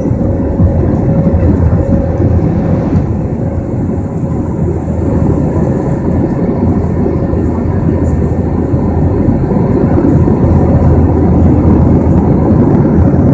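Airbus A321 cabin noise from a window seat over the wing during the climb: the steady low roar of the jet engines and rushing air, with a faint steady hum running under it.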